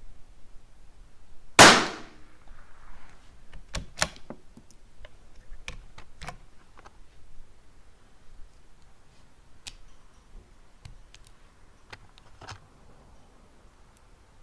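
A single shot from a Tikka T1x .22 LR bolt-action rifle about a second and a half in, sharp with a short ringing tail, followed by a series of quieter sharp clicks as the rifle is handled and the bolt worked.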